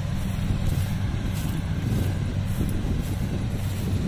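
Kubota DC-70 combine harvester's diesel engine running steadily under load as the machine cuts and threshes rice, a continuous low drone.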